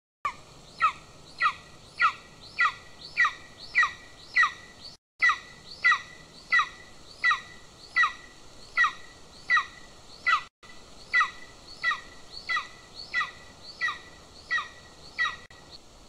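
Adult golden eagle calling on the nest: a long, even series of short, downward-slurred yelps, a little under two a second, about 25 in all. The sound drops out briefly twice.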